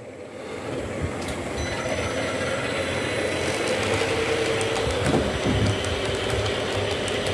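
Miniature model train running on its track: the CC201 locomotive's motor and the container wagons' wheels. The running noise builds over the first couple of seconds as the train gets under way, then holds steady with occasional faint clicks.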